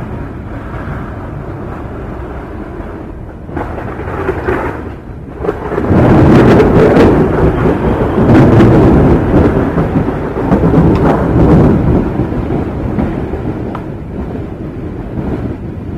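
Thunder: a low rumble swells, then a sharp crack about six seconds in opens into a long rolling rumble that slowly dies down.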